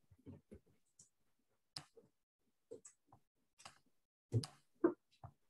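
Scattered computer mouse clicks and light knocks at a desk, irregular and fairly faint, the loudest a pair about four and a half seconds in.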